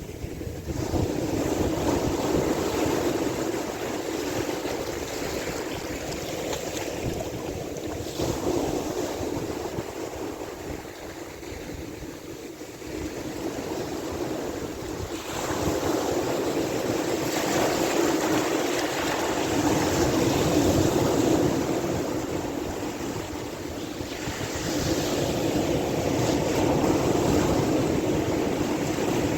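Sea waves washing in and out, with wind buffeting the microphone; the noise swells and eases in slow surges several seconds apart.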